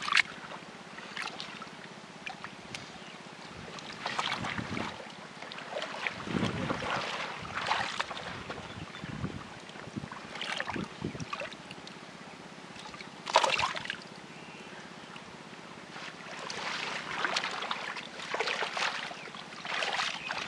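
Shallow muddy water sloshing and splashing in irregular bursts as hands work inside a bamboo plunge-basket fish trap, with two sharp splashes standing out, one just after the start and one about two-thirds through.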